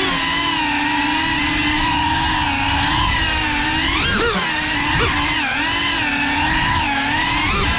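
Brushless motors and ducted propellers of a GEPRC CineLog35 cinewhoop drone whining, the pitch rising and falling with the throttle, with sharp surges about four and five seconds in and again near the end.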